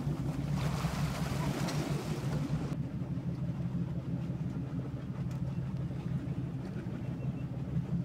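Boat engine running steadily, a low hum, with water splashing and rushing alongside for the first three seconds or so. The water noise cuts off suddenly, leaving the engine hum.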